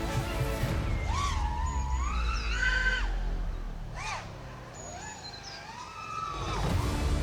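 FPV quadcopter motors and propellers whining, the pitch sweeping up and down with the throttle; the sound drops away for a couple of seconds in the middle and swells back near the end.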